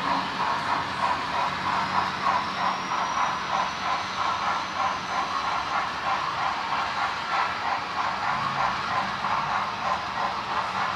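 Sound-equipped model steam locomotive chuffing in an even, steady rhythm as it runs, with a hiss under the beats.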